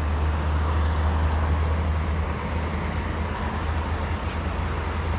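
Steady low rumble with an even hiss: water running below the dam.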